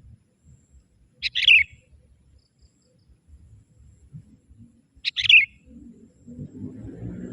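Young sooty-headed bulbul (kutilang) decoy giving two short, bright calls about four seconds apart, calling out to wild bulbuls. A lower drawn-out sound builds near the end.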